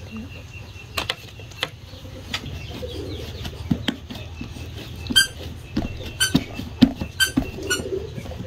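Hands pressing and patting soft sticky-rice dough for bánh dày on a metal tray, giving soft taps and dull thumps. A bird chirps four times in the second half; these chirps are the loudest sounds.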